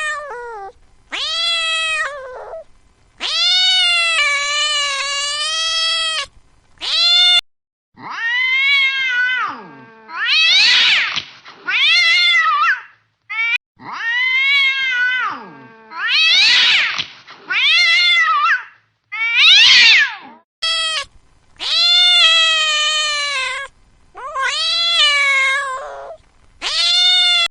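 A domestic cat yowling over and over: about a dozen long, drawn-out meows, several of them swooping up and then falling in pitch. This is the caterwauling of an angry cat. The calls are separated by short gaps and a few abrupt cuts.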